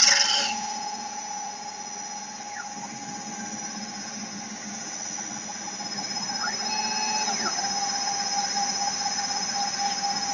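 Stone CNC router spindle running with a steady whine. The grinding of its core drill in the stone stops about half a second in, and the spindle keeps turning while the head moves to the next hole. A brief rising-then-falling whine comes about two-thirds through.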